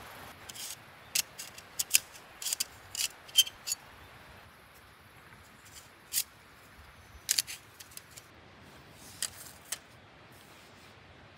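A series of short, sharp clicks or snips, many close together in the first four seconds, then a few scattered ones over a faint steady background.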